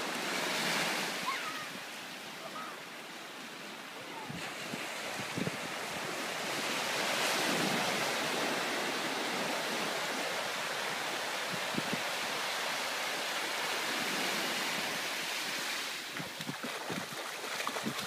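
Small ocean waves breaking and washing up a sandy beach: a steady hiss of surf that swells and eases as the waves run up the sand, loudest about seven seconds in.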